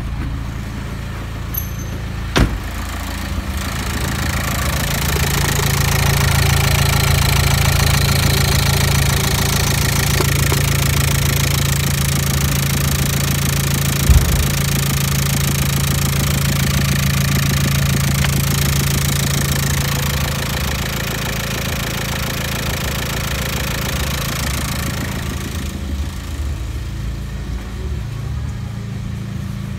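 VW Passat B5's 1.9 TDI (AVF) four-cylinder diesel engine idling steadily. It is louder in the middle and quieter near the end. A single sharp knock stands out about halfway through.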